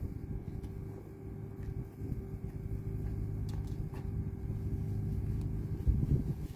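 A steady, low mechanical engine hum with a constant drone, most likely from the moored ship alongside.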